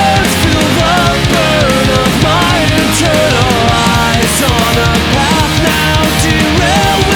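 Melodic punk rock band playing an instrumental passage: distorted electric guitars carry a bending lead melody over bass and fast, driving drums with crashing cymbals.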